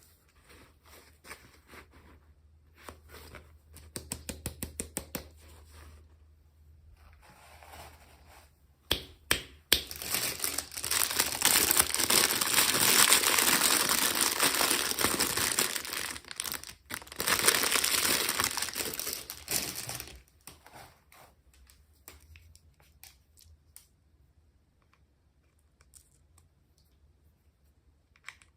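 Packaging being torn open and crinkled by hand. There are light clicks, then a quick run of clicks about four seconds in, then about ten seconds of loud, continuous crinkling and tearing with a brief pause partway through, followed by quieter handling.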